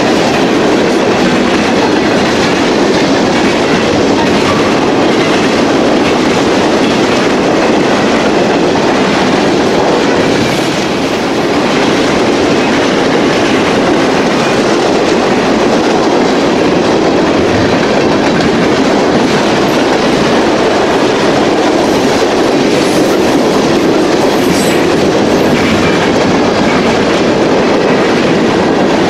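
Freight train cars rolling past close by: a loud, steady rumble of steel wheels on the rails.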